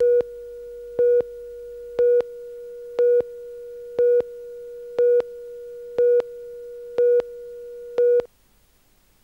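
Countdown leader tone: a steady mid-pitched tone with a louder beep of the same pitch once a second, in time with the numbers counting down. It goes nine times, then cuts off suddenly about a second before the end.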